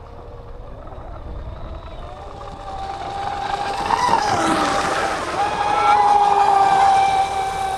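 Electric RC speedboat's motor whining at speed, getting louder as it comes close, over a rush of water spray. About four and a half seconds in its pitch swoops down sharply as it passes, then it settles into a steady high whine.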